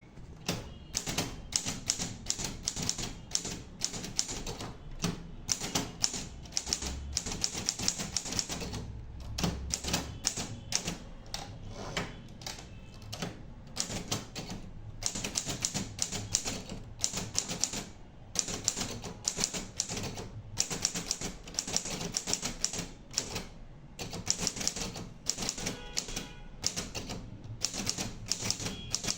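KOFA manual typewriter being typed on: fast runs of key strikes, several a second, broken by short pauses.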